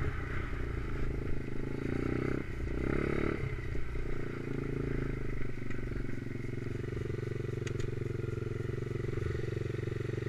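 Stomp pit bike's new 125cc Lifan single-cylinder four-stroke engine with a big-valve head, being run in. It runs unevenly under throttle for the first few seconds, then settles to a steady low-rev run.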